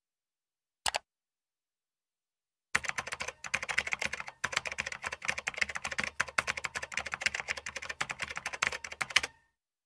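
Rapid typing on a computer keyboard: a dense run of keystrokes lasting about six and a half seconds, after a single short click about a second in.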